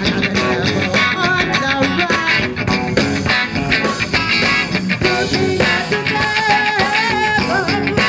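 Live band playing a rock song with electric guitar, bass guitar and drum kit, and a woman singing lead into a microphone.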